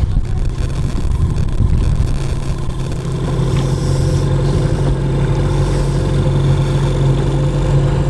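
A motorboat engine running steadily at an even speed, with wind and water noise that is strongest in the first few seconds.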